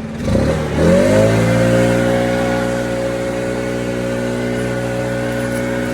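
Compact track loader's diesel engine throttled up from idle: the pitch climbs over about a second, then holds steady at high revs.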